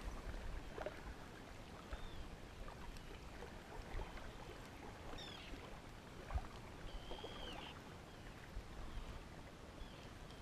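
Quiet lakeshore ambience: faint lapping of water at the edge, with a few faint short high chirps and small ticks.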